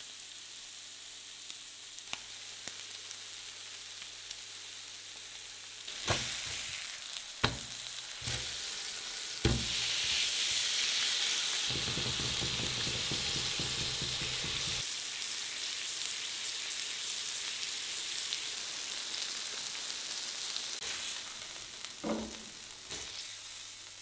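A vegan steak and a beef steak sizzling on an electric grill plate, with several sharp knocks of a utensil on the plate as they are handled. The sizzle swells a little before halfway. Near the end there are more knocks as the steaks are lifted off.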